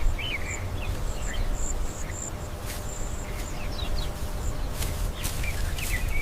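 Outdoor nature ambience: short bird chirps and a thin, broken insect-like trill over a steady low rumble.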